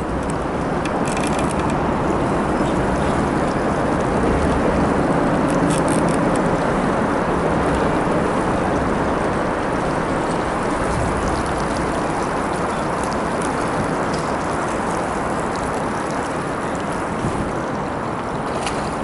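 Steady noise of a fishing boat on the water, a continuous even wash and hum with no change in level, with a few faint ticks.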